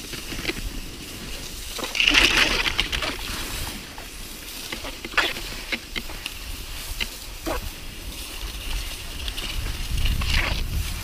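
Rossignol cross-country skis hissing and scraping over packed snow on a fast downhill glide, swelling about two seconds in and again near the end, with a few sharp clicks in between.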